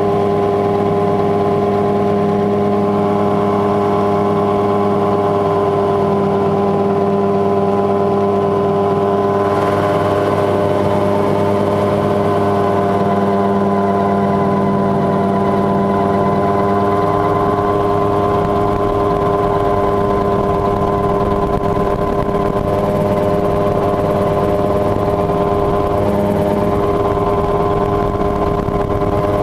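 Mosquito XE ultralight helicopter in flight, its engine and rotor running at a steady, even pitch.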